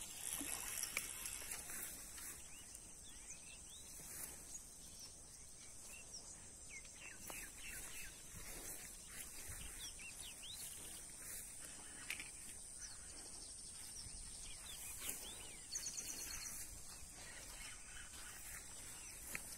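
Quiet outdoor ambience: scattered short bird chirps over a steady high-pitched hiss, with a brief fast trill about three-quarters of the way through.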